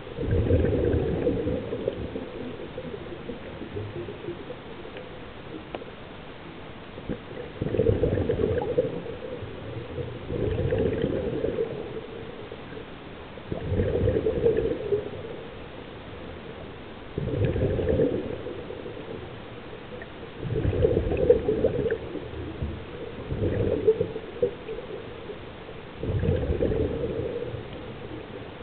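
Scuba diver breathing through a regulator underwater, a low gurgling rush of exhaled bubbles every few seconds, eight times, with a steady hiss between breaths.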